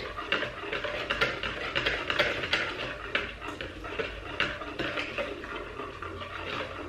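Wire whisk beating egg yolks and sugar in a bowl, clicking and scraping against the sides at about three strokes a second, as the yolks are tempered with a slow trickle of hot cream.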